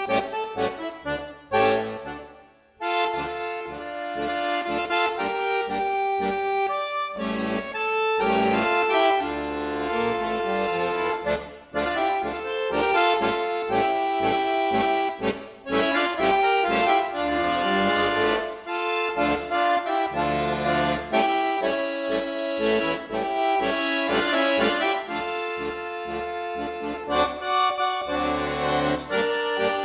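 Instrumental music led by an accordion playing a melody over a steady rhythmic bass, in a traditional style. It drops away briefly about two and a half seconds in.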